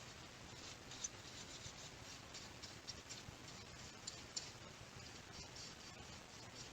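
Soft-bristled paintbrush brushing dust off a 1/12 scale model motorcycle, faint irregular scratchy strokes.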